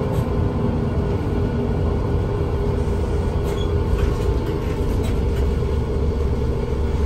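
Inside a Scania L94UA articulated bus on the move: the rear engine runs at a steady low rumble, with road noise and a few faint light rattles from the cabin.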